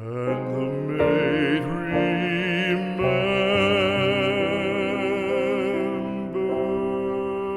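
A classical art song, a trained singing voice holding long notes with a wide vibrato over accompaniment; the note changes about three seconds in and again near the end.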